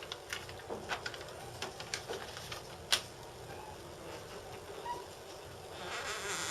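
Self-adhesive decal wrap being peeled slowly back from its release liner: a series of small crackles and ticks, one sharper crack about three seconds in, and a longer rustle near the end.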